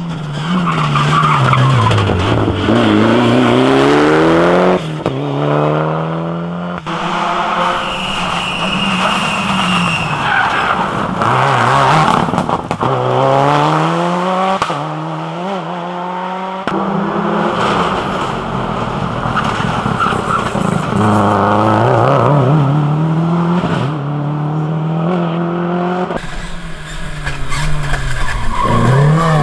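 Rally cars driven flat out on a stage, in a series of short clips: engines rev up and fall back over and over as the drivers shift through the gears, with tyres working on gravel. One of the cars is a Subaru Impreza.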